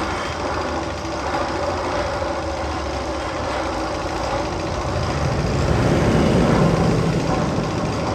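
Roller coaster tunnel sound effect: a steady machine-like rumble with a few held tones, swelling louder about six seconds in.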